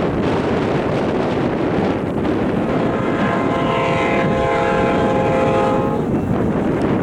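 Amtrak P42DC locomotive's K5LA five-chime air horn sounding one long, steady chord, starting about three seconds in and cutting off about three seconds later. It sounds over a steady rumble and wind buffeting the microphone.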